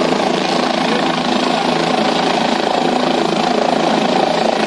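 A helicopter running steadily on the ground, its engine and rotor loud and unchanging.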